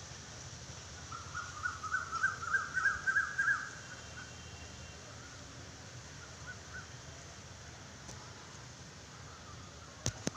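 Birds calling: a quick run of chirps from about a second in to about four seconds, and a few more around six to seven seconds, over a faint steady low background. A couple of sharp clicks near the end.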